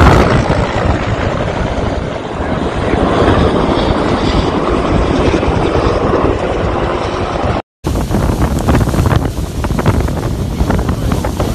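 Wildfire noise with strong wind buffeting the microphone. After a sudden cut, burning trees crackle with many sharp pops over the wind.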